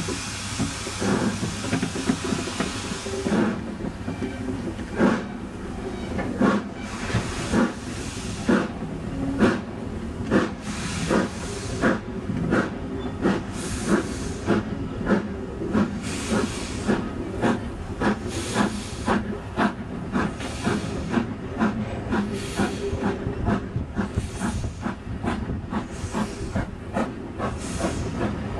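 Steam locomotive pulling away with its train: a steady hiss of escaping steam at first, then from about three seconds in the chuffs of its exhaust, quickening gradually as it gathers speed, with steam hissing beneath them.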